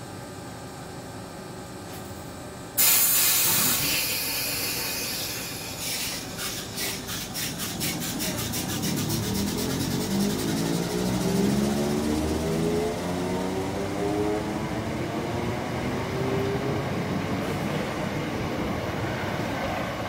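South West Trains Class 455 electric multiple unit pulling out of a station. About three seconds in there is a sudden loud hiss of air that fades away, then quickening ticks from the wheels, and the traction motors' whine rises in pitch as the train gathers speed.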